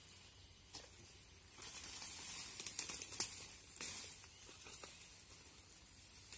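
A steady high insect drone from the surroundings, with rustling and a quick run of sharp clicks a little before the middle.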